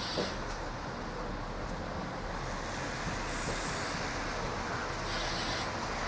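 Danish Y-type (Ym/Ys) diesel railcar running slowly into a station, a steady engine and wheel noise on the rails. Short hissing bursts come about three times.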